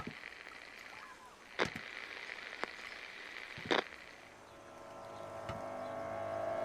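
Film soundtrack: a few short, sharp sounds over a faint background in the first few seconds, then a low, ominous drone of held tones that starts about halfway through and swells steadily louder, a suspense music build.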